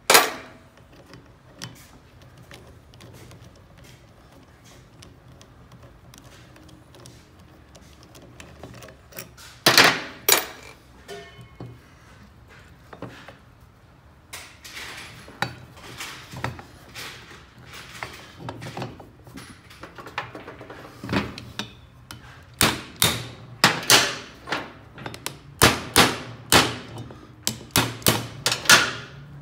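Metal hand tools knocking and clinking against a BMW R1200GS aluminium cylinder head and the steel bench during disassembly. A sharp knock comes at the start, two more about ten seconds in, and a quick run of metallic clicks and taps, about two a second, comes in the last several seconds as a wrench is worked on the head.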